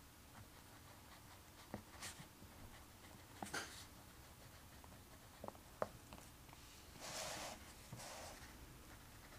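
Faint scratching of writing on paper: short strokes and light taps, with a longer scratchy stretch about seven seconds in.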